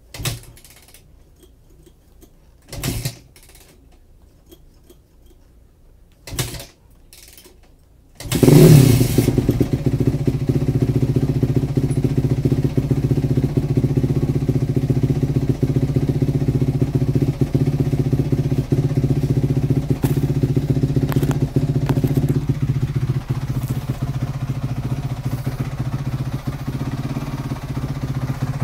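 A 2004 Honda CRF250R's single-cylinder four-stroke engine being kick-started: three short kicks a few seconds apart fail to start it, then it fires about eight seconds in with a loud burst and settles into a steady idle through its stock exhaust. It is slow to start without the choke, which the owner puts down to having left the fuel tap off.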